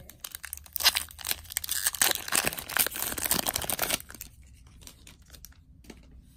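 Foil wrapper of a Magic: The Gathering Modern Horizons booster pack being torn open and crinkled: a dense crackling tear starting about a second in and lasting about three seconds, then only faint handling.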